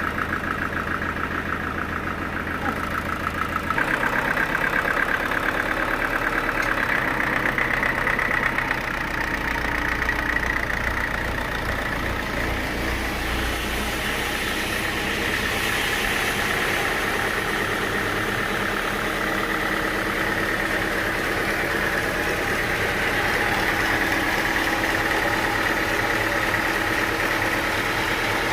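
An engine running steadily, its note changing about four seconds in.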